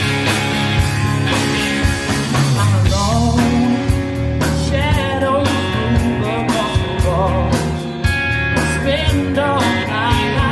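Live rock band playing, with the drum kit hitting steadily under electric guitar, and a man singing from about three seconds in.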